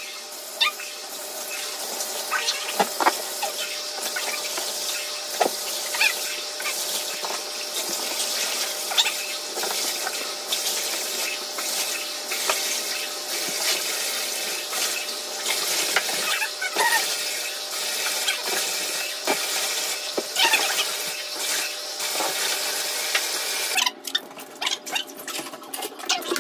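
Water running steadily into a bathtub while a dog is washed, with small splashes now and then. The running water stops near the end.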